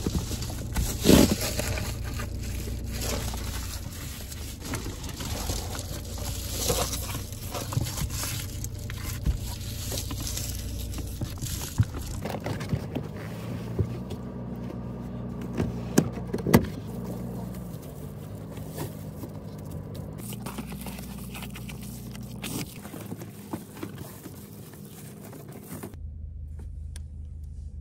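Rustling, scraping and scattered knocks of someone moving about inside a parked car and fitting mesh covers over the windows, with a few sharper knocks, over a steady low hum.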